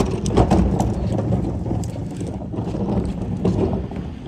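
Plastic wheels of a wheeled trash cart rolling over a concrete driveway: a steady rattling rumble with many small knocks, easing somewhat in the second half.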